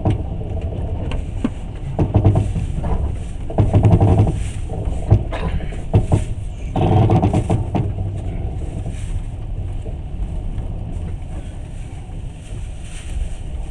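Passenger train running along the track, heard from on board: a steady low rumble of the wheels on the rails that swells louder several times, with a couple of sharp knocks in the middle.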